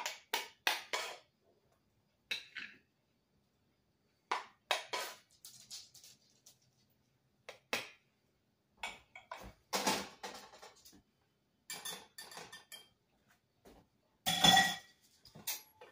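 Dishes and metal utensils clinking and clattering in scattered short knocks with quiet gaps between, the loudest clatter near the end.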